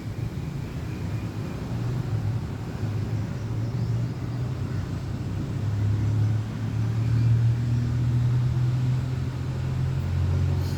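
Steady low rumble of a motor vehicle engine running, swelling a little louder about halfway through.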